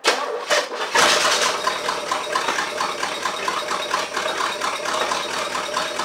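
El Camino's engine cranking on the starter and firing unevenly as it tries to catch. It starts abruptly, gets louder about a second in, then runs on as a rough, pulsing sputter.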